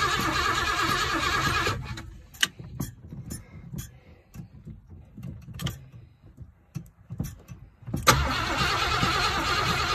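A car engine running, then cutting out about two seconds in. A few scattered clicks and knocks follow in the quiet, and about eight seconds in the engine suddenly starts again and keeps running.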